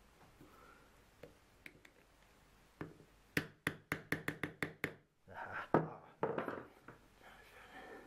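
Hand tools, a screwdriver and pliers, working on the Volvo Penta S120 saildrive housing: a quick run of about eight sharp knocks about three seconds in, then a second or so of rougher scraping and rattling.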